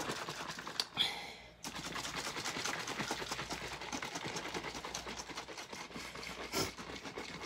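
Plastic water bottle being shaken hard to mix drink powder into water: a fast, even sloshing and knocking rhythm that settles in about two seconds in, with a couple of louder knocks along the way.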